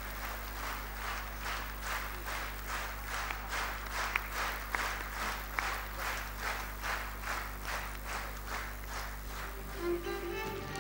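Concert-hall audience clapping in unison, about two to three claps a second, over a steady low hum. Near the end the clapping dies away and music begins.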